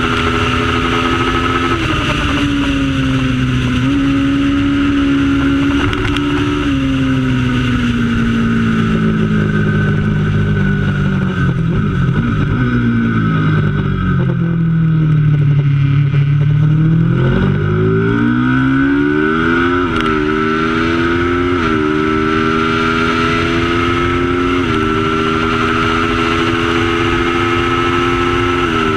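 A racing motorcycle engine running hard through a race, its pitch stepping up and down with gear changes. Near the middle it falls slowly as the bike slows, then climbs again as it accelerates.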